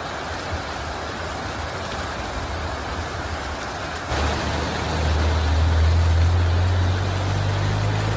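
Steady heavy rain, with a vehicle engine running low underneath. The engine grows louder about four seconds in, and its pitch steps up near the end.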